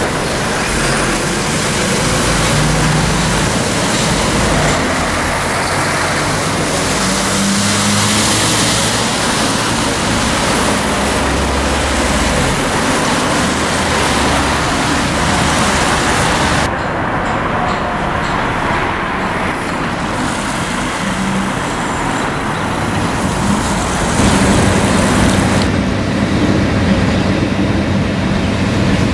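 Road traffic and diesel excavators at roadworks, a steady mix of engine and tyre noise. Near the end a louder, steady engine drone takes over: a piling rig's diesel engine running.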